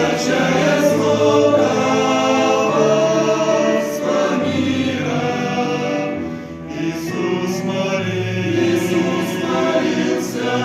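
Men's vocal ensemble singing a hymn in several-part harmony, holding long chords, with a short break between phrases about six seconds in.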